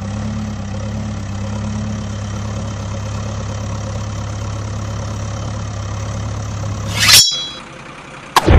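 Steady diesel-engine idle sound effect, a low even hum, laid over a toy backhoe loader that has no engine of its own. About seven seconds in, a brief high-pitched burst cuts it off, and near the end a sudden loud rush of noise starts.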